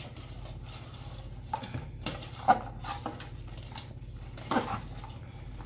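Cookware and utensils clinking and knocking in a handful of separate strikes, the sharpest about two and a half seconds in and another near four and a half seconds, over a steady low hum.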